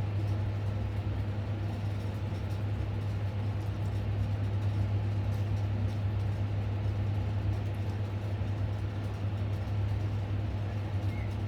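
Steady low machine hum, even in level and pitch throughout.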